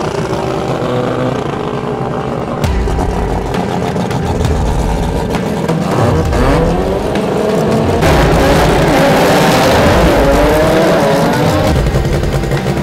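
Honda-engined import drag race cars revving loudly, the engine pitch gliding up and down, with sudden changes in the sound about three and eight seconds in.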